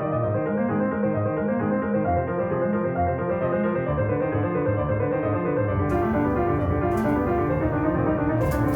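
Background music led by piano, notes changing steadily, with a faint hiss or scraping noise joining about six seconds in.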